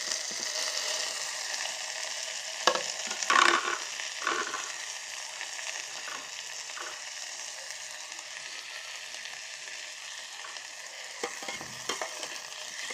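Chopped tomato and fried onion sizzling in hot oil in an electric kettle's jar. The sizzle starts suddenly when the tomato goes in. A spoon stirring the pan knocks and scrapes a few times about three seconds in and again near the end.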